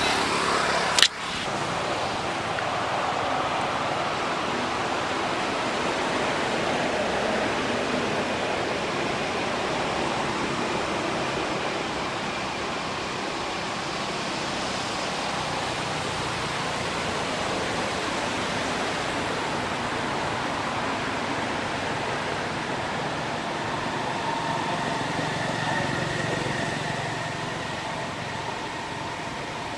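Steady outdoor background hiss with no clear source, with one sharp click about a second in.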